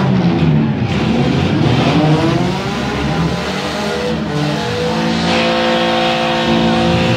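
Several demolition derby cars' engines revving unevenly in the arena. A steady held tone joins about five seconds in.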